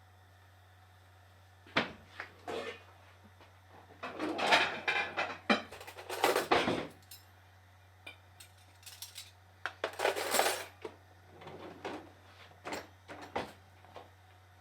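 Utensil scraping and clattering against a frying pan in irregular clusters of knocks and scrapes, as a pancake is worked in the pan.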